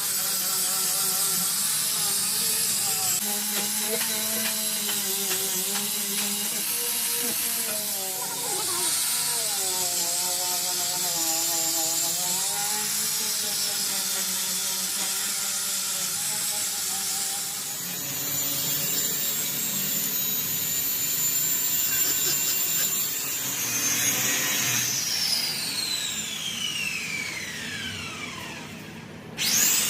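A power tool running continuously with a dense, high grinding hiss and an uneven lower hum. Near the end a high whine falls steadily in pitch over several seconds.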